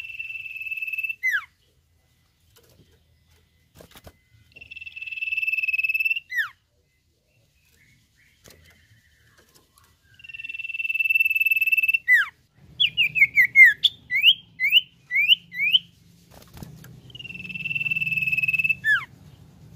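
Common iora (cipoh) singing a long, steady, high whistle that ends in a short falling note, four times over. Between the third and fourth whistles comes a quick run of short notes sweeping down and then up.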